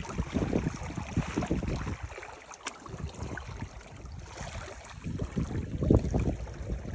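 Wind buffeting the microphone in irregular low rumbles, with lake water lapping.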